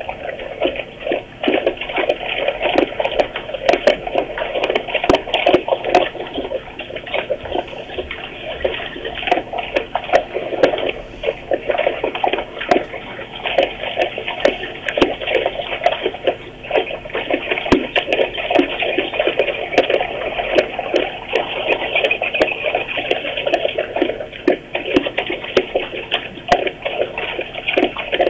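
Brown bear eating near the microphone: wet chewing and lip-smacking with dense crunching and crackling throughout.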